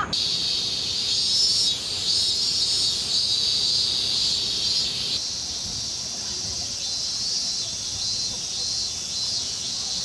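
Cicadas (semi) screeching in a dense chorus, a steady high buzz with a faster pulsing layer above it. About five seconds in, the chorus turns thinner and quieter.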